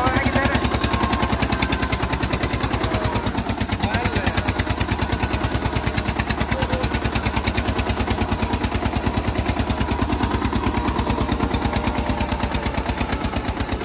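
Eicher tractor's diesel engine running as it is driven along, with a fast, even exhaust beat.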